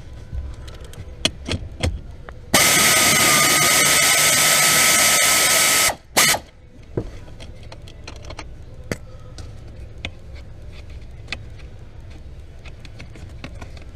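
Power drill or driver running steadily for about three seconds, then a short second burst, with scattered clicks of tool handling before and after.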